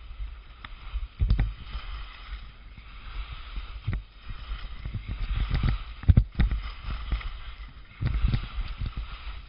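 Ski-touring skis hissing and scraping over snow on a downhill run, over a low rumble, with several dull thumps.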